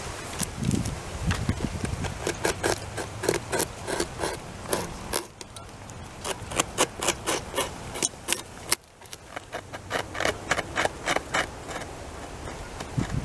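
Beaver gnawing into the trunk of a felled tree with its incisors: a rapid run of short scraping bites on the wood, several a second, with a couple of brief pauses. It is chewing a chunk out of the fallen trunk.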